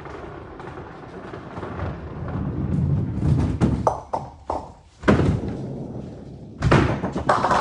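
Nine-pin bowling balls rolling down the lanes with a low rumble that builds, then pins clattering as they are struck, with a string of sharp knocks about three to five seconds in. A loud knock comes near the end.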